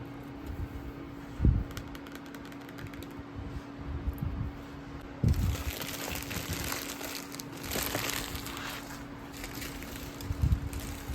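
Packaging being handled and crinkled, busiest in the middle, with a few dull thumps: one about a second and a half in, one about five seconds in, and a pair near the end. A steady low hum runs underneath.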